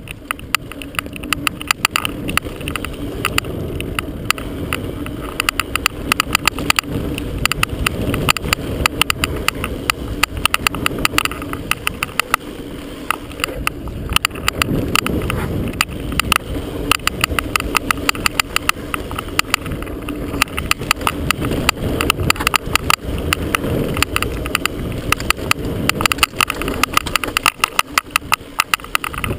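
Rocky Mountain Element mountain bike riding fast down a dirt single track: a steady rumble of tyres and wind, with rapid, irregular knocking all the way through from the camera banging on its chest mount.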